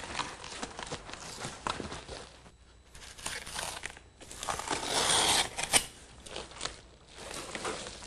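Sheet of Reflectix foil-faced bubble insulation crinkling as it is handled and pressed into place against a garage door, in uneven bursts with a few sharp crackles, loudest about five seconds in.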